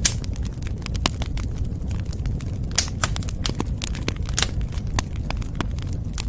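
Wood fire crackling in a fireplace: a steady low rumble of flames under frequent, irregular sharp pops and snaps, the loudest right at the start and about four and a half seconds in.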